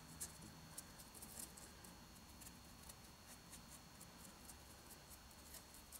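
Faint, irregular scratchy ticks of a paintbrush dabbing and stroking acrylic paint onto a textured rock-mold surface.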